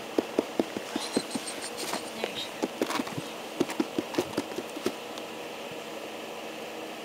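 Black-footed ferret scrabbling in a tilted plastic pet carrier: a quick, irregular run of light knocks and scratches that dies away about five seconds in. A short series of high chirps comes about a second in.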